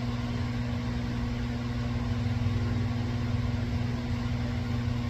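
Turbocharged engine of a 2019 Polaris RZR XP4 Turbo idling steadily. Its turbocharger is failing: it leaks oil and has play, moving around enough to make contact.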